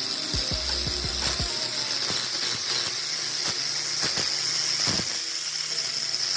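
Electric core-cutting drill running steadily as it bores a pipe hole through a wall, with a steady hiss and a few clicks, under background music.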